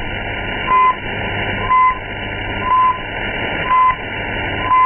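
Time-signal pips on a Voice of Turkey shortwave broadcast: short, high beeps about a second apart over steady radio hiss, the last one longer, marking 19:30 UTC as the English transmission begins.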